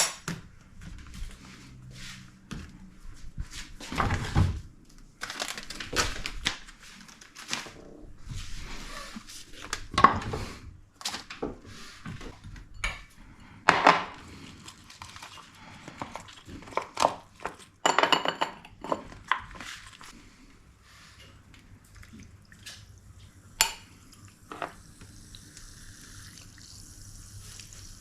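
Kitchen clatter: pots, dishes and cutlery being handled, with irregular knocks and clinks, one of them ringing on briefly about two-thirds of the way in.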